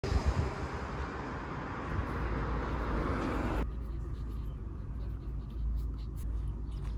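Road traffic ambience, a steady rushing noise with low rumble, that cuts off sharply about three and a half seconds in. It gives way to a quiet room where a pen scratches faintly on paper.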